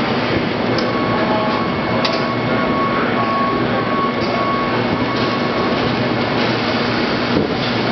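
Steady loud drone of industrial laundry machinery and pressing equipment, with a faint high tone that comes and goes through the middle and a few light clicks.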